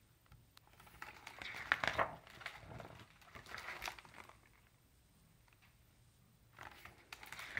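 Pages of a hardcover picture book being turned and the book handled: faint paper rustling in a few short bursts, about one to two seconds in, around four seconds in, and again near the end.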